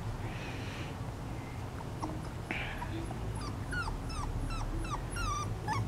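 Puppy whimpering: a run of short, high whines, each falling in pitch, about three a second, starting about two seconds in.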